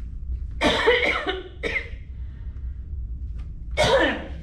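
A woman coughing: two coughs close together about half a second in, then one more near the end.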